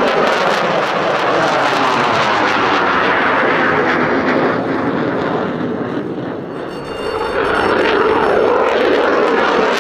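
F-16 Fighting Falcon jet engine at full afterburner, a loud continuous roar with a sweeping, phasing quality as the jet climbs away after takeoff. It eases off about six seconds in, then swells again.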